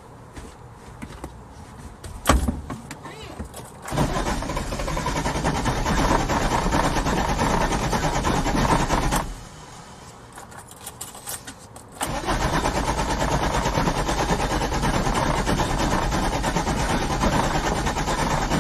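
Car engine cranking on the starter motor without catching: two long cranking attempts, the first about five seconds and stopping abruptly, the second starting a few seconds later and running on. A click comes before the first attempt, and a few more clicks come in the pause between them.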